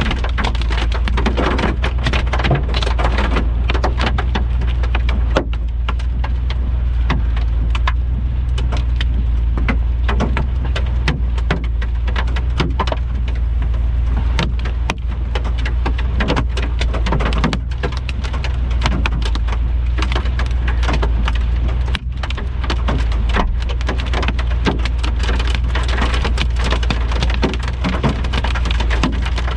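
Heavy thunderstorm rain pelting down on a vehicle: a dense, unbroken patter of drops over a steady low rumble.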